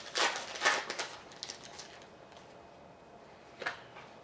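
Hockey card pack and cards being handled: a cluster of papery rustling and crinkling in the first second, then a single short rustle near the end.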